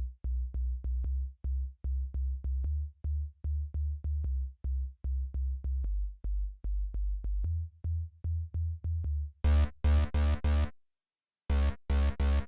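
Kilohearts Phase Plant software synthesizer playing a pulsing deep bass line in short rhythmic notes. About nine and a half seconds in, bright stabbed chords join the bass, stop for about half a second, then return.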